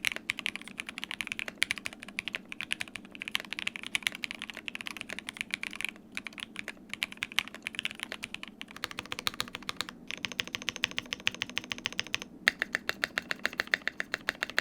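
Typing on a Qwertykeys QK60, a gasket-mounted 60% custom mechanical keyboard built with plate foam and PE foam and no case foam: fast, steady keystrokes with a few brief pauses.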